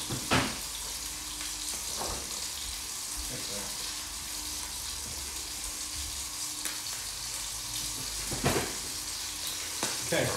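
Steady sizzling hiss from pans on a stove hob. A few short knocks of a kitchen knife on a wooden chopping board come through it as carrots are cut.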